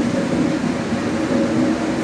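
Trensurb Series 100 Hitachi electric train's traction motors growling loudly while running, heard from on board. The sound is a steady hum made of a couple of low tones over a rumbling ride noise.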